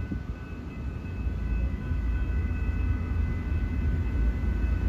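Low, uneven rumble of wind buffeting the microphone, surging and easing, with a few faint steady high-pitched tones held above it.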